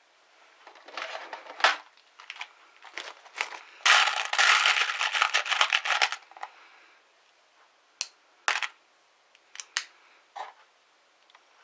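Rustling and crinkling of things being handled, with a loud, dense stretch in the middle and then a few sharp clicks.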